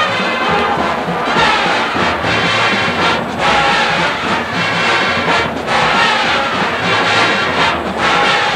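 Marching band brass section playing swing-era big band music, trombones and trumpets to the fore.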